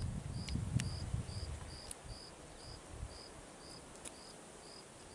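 A cricket chirping steadily, short high chirps about twice a second. In the first second and a half there are low muffled thumps and a few sharp clicks.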